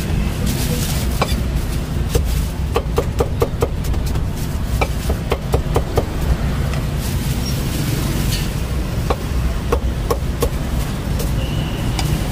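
A steel cleaver slicing cucumber on a thick round wooden chopping block: short runs of quick, sharp knocks as the blade hits the wood, over a low rumble of street traffic.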